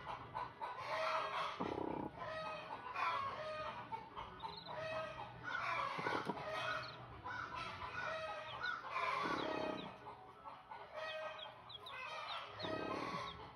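A flock of chickens calling over one another without pause: steady clucking with a longer crowing call every few seconds. Short high peeps, typical of young chicks, come through in the second half.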